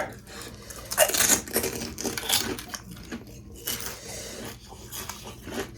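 Close, irregular crunching and crackling, with the loudest crunches about a second in and again just past two seconds: the noises of eating and handling crisp food.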